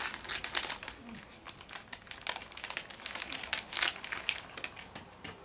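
Wrapper of an ice-cream bar being torn open and peeled off by hand, crinkling and crackling irregularly, with a louder crackle about four seconds in.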